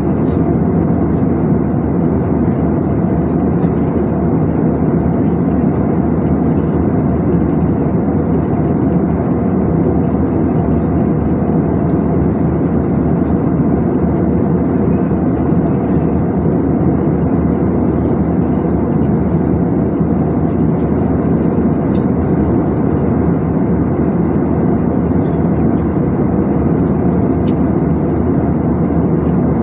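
Steady cabin drone of an Airbus A320-family jet airliner in cruise: the rush of engines and airflow heard through the fuselage, with a faint thin high whine above it. Two faint ticks come in the last third.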